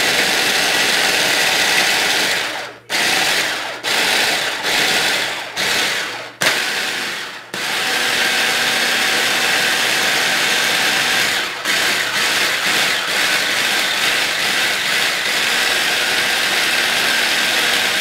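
Mallory stick blender's motor running with its chopper-bowl attachment, the blade grinding pieces of fresh coconut into small flakes. The motor is pulsed off and on five or so times about three seconds in, then runs without a break.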